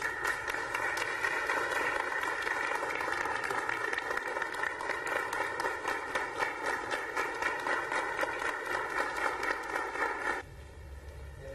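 A crowd applauding in a large hall, steady clapping that cuts off abruptly about ten seconds in.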